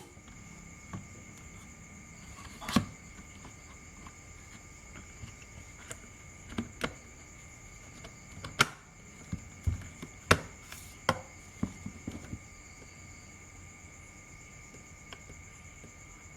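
Scattered sharp clicks and taps, a dozen or so, most of them bunched in the middle of the stretch, over a faint steady high-pitched whine.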